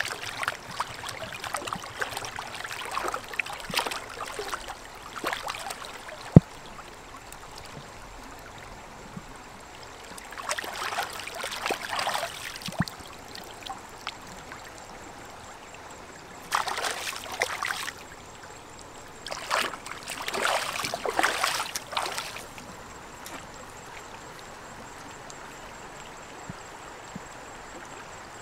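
Splashing water in several bursts as a raw pork leg is rinsed and rubbed by hand in a shallow stream, over the steady running of the stream. A sharp knock about six seconds in is the loudest moment, with a fainter one near the middle.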